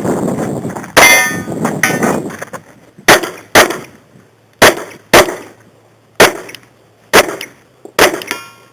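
Glock 22 .40 S&W pistol firing a string of about nine shots, spaced half a second to a second apart, some in quick pairs. The first two shots, near the start, are followed by a long metallic ringing.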